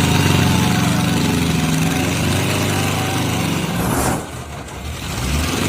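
A vehicle engine running steadily and loudly; about four seconds in it cuts abruptly to a quieter, lower engine rumble.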